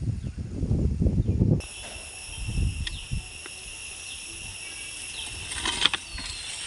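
Low rumbling noise for about a second and a half, then an abrupt change to a steady, high-pitched insect drone with a few faint clicks.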